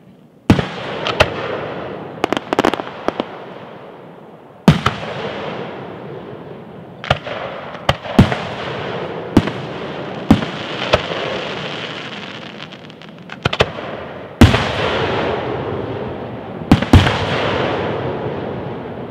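Fireworks display: aerial shells bursting one after another, about fifteen sharp bangs at irregular spacing, some in quick pairs, each trailing off in a long rolling echo. The loudest bangs come about five and fourteen seconds in.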